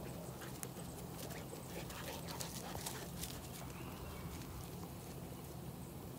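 Australian Shepherd puppy romping on grass: scattered light patters and clicks, most of them in the first half, over a steady low hum.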